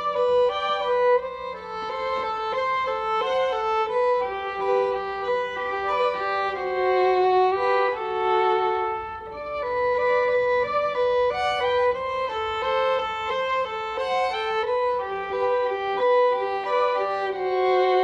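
Instrumental background music: a violin plays a melody in held notes that change every half second or so.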